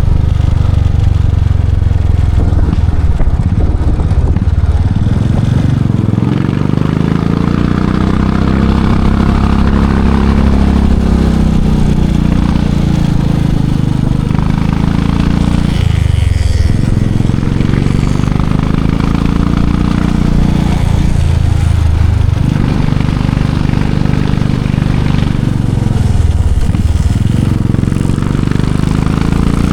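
Royal Enfield Classic 500's single-cylinder engine and exhaust running on the move: the pitch climbs as the bike pulls, then drops sharply at gear changes, several times.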